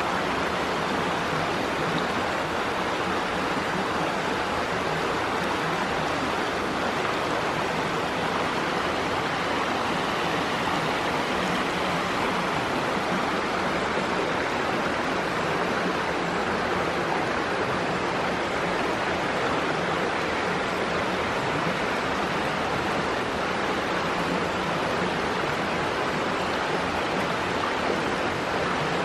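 Shallow burn running steadily over rocks and fallen logs.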